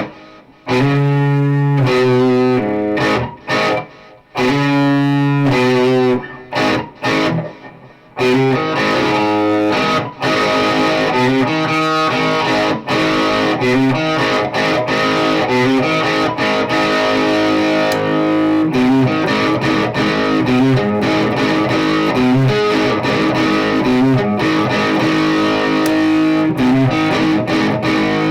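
Electric guitar fitted with Fleor Alnico 5 two-wire humbucker pickups, played with distortion. Several chords ring and are cut off short, with brief gaps between them, over the first eight seconds or so; then the playing turns into continuous, dense riffing.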